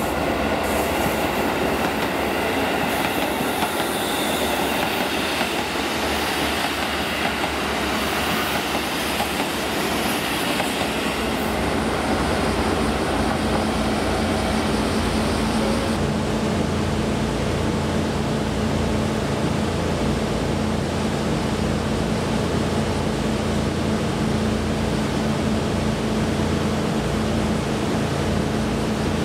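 JR Kyushu diesel railcars: a KiHa 185 runs along the platform with wheel and rail noise. About halfway through the sound changes abruptly to a steady, low diesel engine hum from a railcar standing close by.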